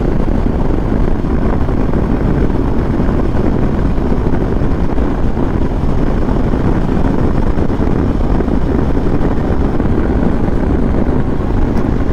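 Kawasaki Versys motorcycle cruising at steady highway speed: a constant rush of wind on the microphone mixed with the engine's steady drone.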